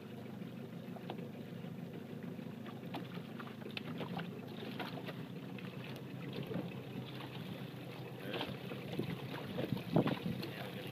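Water sloshing and splashing around a capsized Sabot sailing dinghy as it is pulled upright, with many small splashes throughout and the loudest splash near the end as the hull comes level and water pours off the sail.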